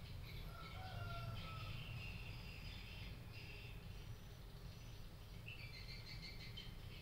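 Faint chirping of small birds, many short calls overlapping, over a steady low hum.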